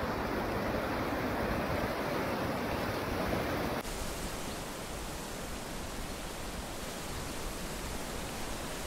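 Wind on the microphone over rushing floodwater, a dull noisy rush. About four seconds in it cuts off abruptly to a steady, even hiss.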